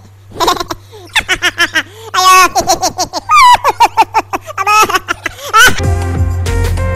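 High-pitched laughter in rapid rising and falling bursts, giving way near the end to music with a steady bass.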